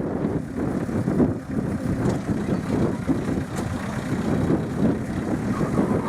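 A miniature railway train running, a steady low rumble with irregular pulses.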